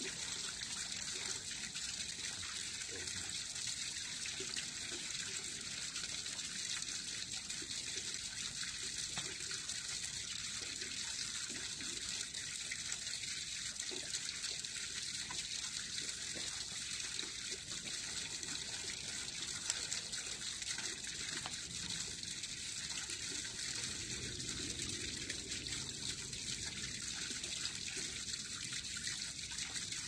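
Steady rushing hiss, like running water, unchanging throughout, with a few faint soft knocks.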